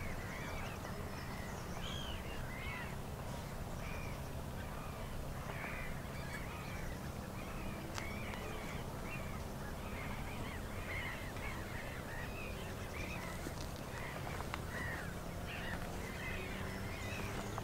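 A flock of birds calling: many short, chattering calls overlapping one another, with a steady low hum underneath.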